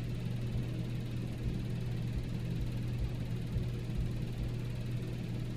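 A steady low hum with a faint rumble beneath it, unchanging throughout: room tone.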